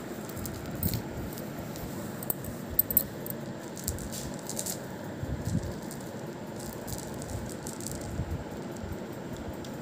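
Beads on a cord clicking and jangling irregularly as a kitten bats the string and a hand pulls it across a tiled floor, with small flurries of ticks about four and five seconds in, over a steady low rustle.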